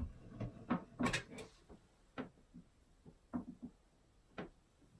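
Manual caulking gun clicking and knocking as it is squeezed and handled while laying a bead of caulk: a string of irregular short clicks, the sharpest about a second in.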